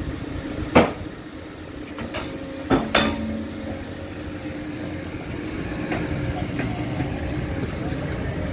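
Excavator diesel engine running steadily, with sharp metallic clangs of the steel bucket striking steel sheet piles as it drives them down. A loud clang comes about a second in, then a quick pair near three seconds with a brief ring, and lighter knocks later.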